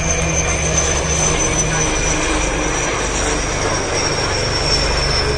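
Three helicopters flying past in formation: steady rotor and turbine engine noise with a thin high whine that slowly falls in pitch.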